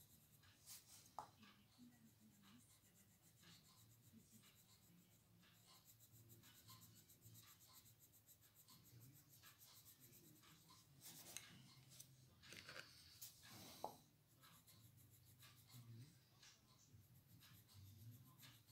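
Faint scratching of a coloured pencil shading on a colouring-book page, with a louder run of strokes about two-thirds of the way through.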